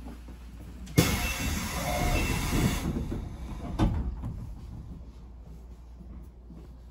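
Train noise: a sudden loud hiss about a second in that lasts about two seconds, followed by a single clunk, then a low steady rumble.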